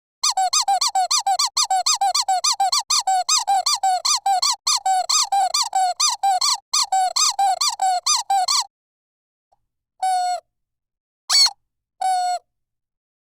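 Rubber dog squeaky toy squeezed over and over, a rapid run of high squeaks at about four a second, each rising and falling in pitch. After a short pause, three single squeaks, the first and last longer.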